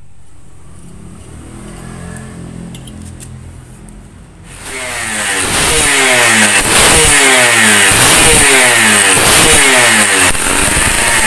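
Yamaha V80 two-stroke single-cylinder engine idling, then revved hard and repeatedly from about four and a half seconds in, staying loud and high.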